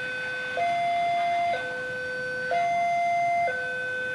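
Railway level-crossing warning alarm sounding its electronic two-tone signal: a lower and a higher note alternate evenly, each held about a second, warning that a train is approaching the crossing.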